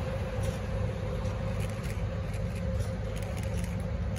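Freight train of empty intermodal container flat wagons rolling slowly past close by behind Class 90 electric locomotives: a steady low rumble of wheels on rail with a steady hum and scattered light clicks.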